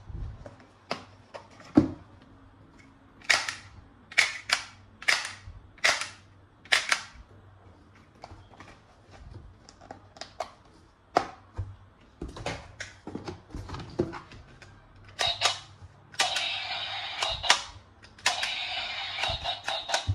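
Plastic toy guns clicking and snapping: a string of sharp separate snaps, about six loud ones in quick succession a few seconds in, then a continuous rattle over the last few seconds.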